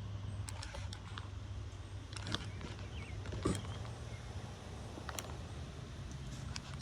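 Strong wind rumbling steadily on the microphone, with a few scattered sharp clicks and ticks.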